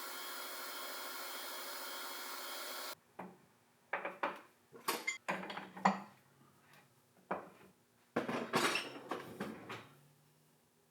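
A shop machine runs with a steady hiss and cuts off abruptly about three seconds in. Then metal pieces clink and clatter, several sharp knocks and a short scraping rub, as parts are handled on a bench.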